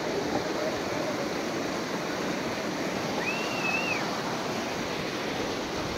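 Fast glacial meltwater stream rushing over rocks, a steady noise of water. A brief faint high whistle rises and falls about three seconds in.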